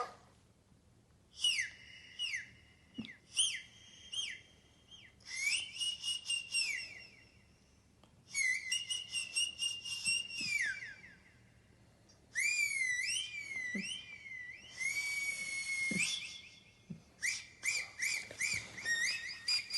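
Strange high-pitched whistling noises in short phrases with gaps between them: some glide downward, some warble rapidly up and down, some are held steady.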